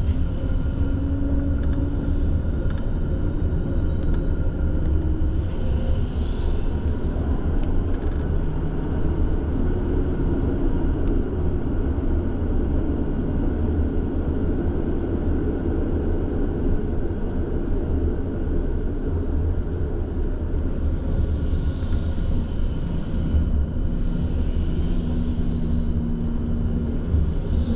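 Tram running, heard from inside the car: a steady low rumble with a faint hum that comes and goes.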